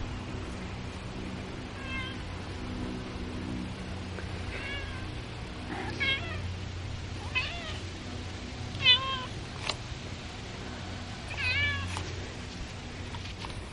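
Domestic cat meowing repeatedly: about six short meows a second or two apart, each bending up and down in pitch.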